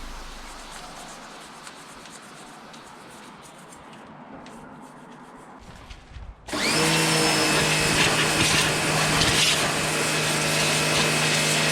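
A quiet stretch as music fades, then about six and a half seconds in an electric machine switches on: its motor spins up and runs steadily at a loud, even whine with a hiss over it.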